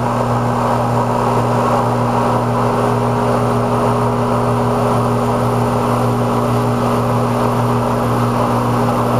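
Heil air-conditioner condensing unit running with its contactor held in by hand: the compressor and condenser fan make a steady low hum over an even rush of air. The compressor is pumping the system down, drawing the refrigerant into the condenser with the liquid service valve closed.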